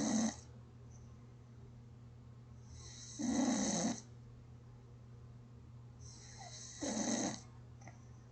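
A sleeping person snoring at a slow, even rhythm. The tail of one snore comes at the very start, then full snores come about three seconds in and about seven seconds in, each lasting under a second. A steady low hum runs underneath.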